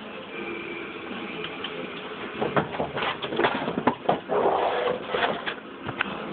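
Objects being handled and moved about: irregular clattering knocks and rustling, thickest from about halfway in.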